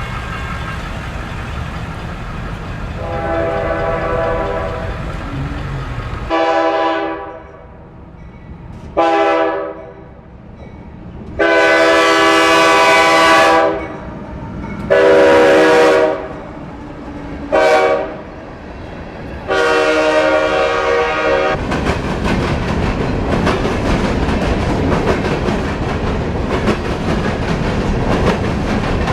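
A diesel locomotive's multi-note air horn sounds seven blasts of varying length, some long and some short, over a low engine rumble. About three-quarters of the way through the horn stops and the train passes close by, with a loud, steady rushing clatter of wheels on rail.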